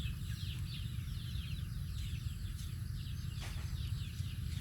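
Many small animals peeping in high, short, downward-sliding chirps, several a second and overlapping, over a steady low hum. A single brief click sounds a little past the middle.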